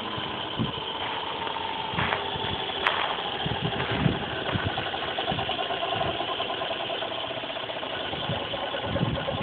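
Align T-Rex 550 radio-controlled helicopter flying, a steady motor and rotor whine that drifts slightly in pitch, with scattered low thumps.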